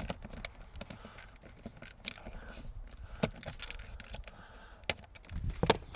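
Scattered clicks and light knocks of a Torx screwdriver and hard plastic dash trim being handled while a fastener under the dashboard is undone, a few sharp ticks spaced a second or so apart.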